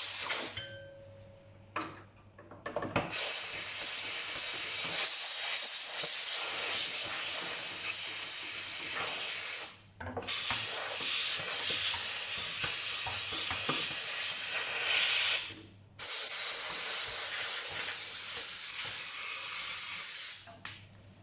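Kärcher SC 1030 steam cleaner jetting steam with a loud, steady hiss. There is one short burst about two seconds in, then three long blasts of several seconds each, broken by brief pauses. The hiss stops shortly before the end.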